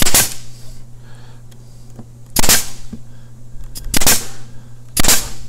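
Porter-Cable narrow crown stapler firing 3/4-inch crown staples four times, each shot a sharp crack, fastening a quarter-inch melamine drawer bottom to the back of the drawer box. The first shot is at the very start, the others follow at uneven gaps of one to two and a half seconds.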